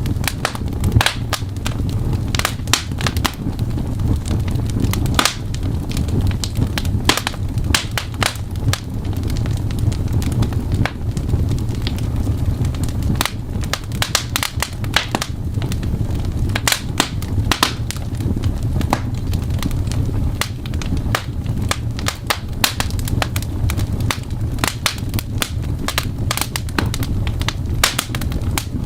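Crackling fireplace with irregular sharp pops and clicks, mixed with typing, over a steady low rumble.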